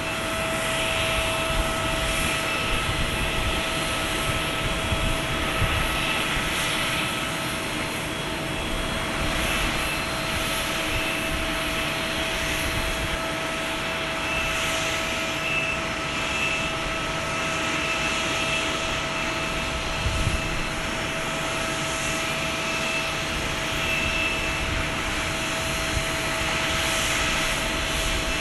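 Airbus A321neo's Pratt & Whitney PW1100G geared turbofan engines running steadily, a constant jet noise with a steady whining tone held throughout.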